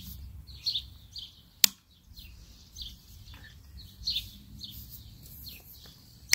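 Small birds chirping repeatedly in short high calls, with a sharp click about one and a half seconds in and another at the very end from the cordless garden tiller's shaft being handled.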